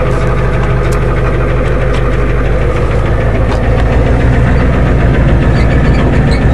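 Ford F-250 diesel engine idling steadily with a knocking diesel clatter while it warms up. It is a tired diesel, just brought back to life after a year unstarted, now running evenly.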